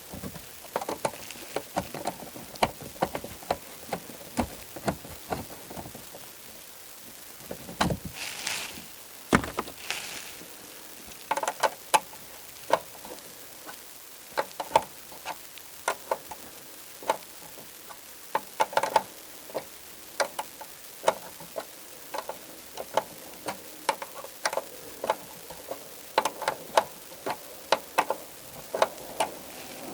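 Irregular clicks and light knocks of hands working a car taillight into place, with two heavier thumps about eight and nine and a half seconds in.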